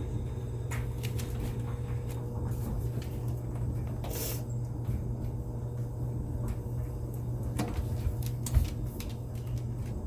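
Scattered clicks and knocks from hands working the water heater's gas control knob and its door, with a short rush of noise about four seconds in and a thump near the end, over a steady low hum.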